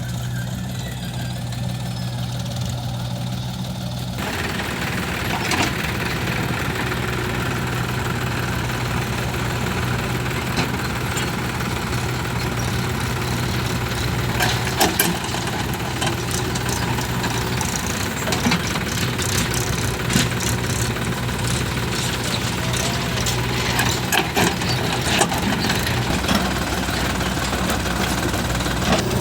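Diesel engine of heavy earth-moving machinery running steadily. From about four seconds in, a rattling noise joins it, with scattered knocks and clanks.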